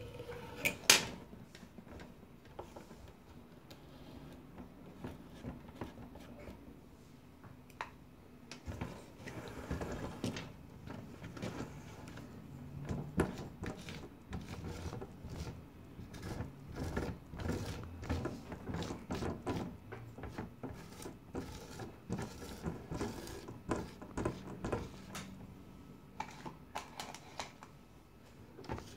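A tool scraping grout between stained-glass mosaic pieces. From about nine seconds in, a rubber grout float rubs and scrapes across the glass in many short strokes. A sharp click about a second in.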